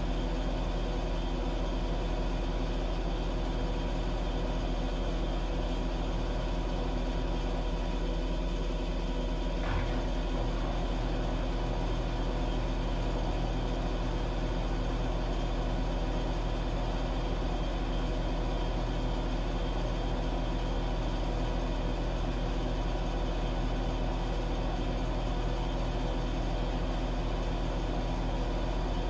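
Washing machine running with a steady motor hum, holding an even pitch throughout, with a single short knock about ten seconds in.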